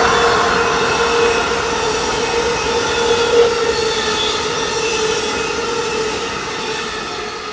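Amtrak passenger train led by an ACS-64 electric locomotive passing at speed: the rush and rumble of the passenger cars going by, with a steady tone running through it. The sound slowly fades toward the end as the train moves away.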